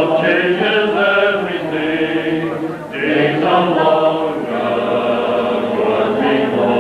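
Welsh male voice choir singing together, many men's voices in sustained held notes, with a short break for breath about three seconds in.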